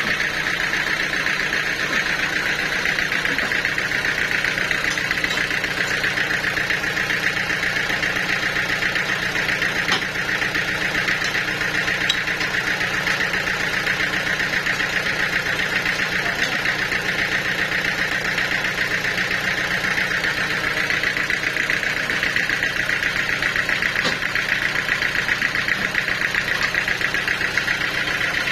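Sawmill machinery running steadily, an engine-driven saw with an even high drone that does not let up.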